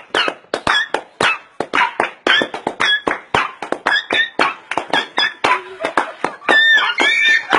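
A dog crying: a rapid string of short, high-pitched yelps and whines, several a second, each starting sharply.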